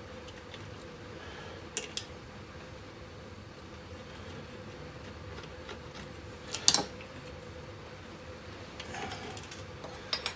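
Light metallic clicks of a screwdriver working on the small brass sight-glass fitting of a model steam boiler: a pair about two seconds in and a louder pair about halfway, over a steady low hum and hiss.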